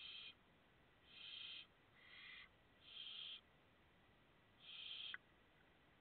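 Barn owl chicks giving hissing begging calls: five harsh calls of about half a second each, the last ending abruptly with a click.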